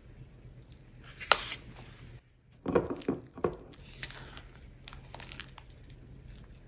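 Spatula stirring a thick, wet cocoa and Greek yogurt mixture in a glass bowl: short squelching scrapes, bunched about three seconds in, with a sharp rustle about a second in and softer stirring after.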